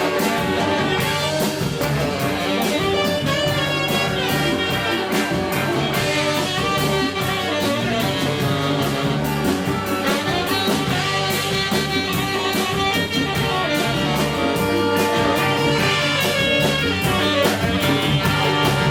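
Live band playing Ethiopian jazz, with drum kit, guitar and brass.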